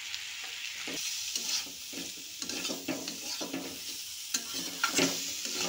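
Diced turnip frying with a steady sizzle in an aluminium kadhai as ground spices are stirred in. A spatula scrapes and knocks against the pan in irregular strokes from about a second in.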